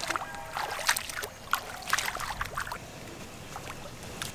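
Feet wading through shallow floodwater, with a run of irregular splashes and sloshes over the first few seconds, then quieter.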